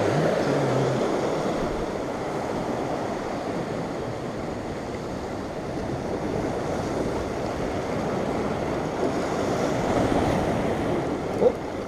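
Sea surf breaking and washing over volcanic shoreline rocks: a steady rush of water that swells slightly near the end, with some wind buffeting the microphone. A brief sharp sound stands out just before the end.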